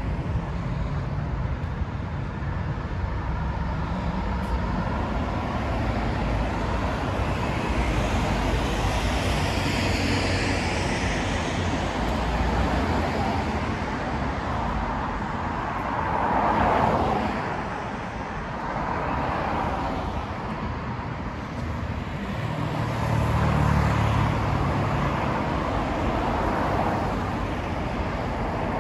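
Road traffic on a multi-lane city street: a steady wash of engine and tyre noise, with cars passing one after another. A pass-by swells and fades about a third of the way in, another comes a little after the middle, and a deeper low rumble rises about four-fifths through.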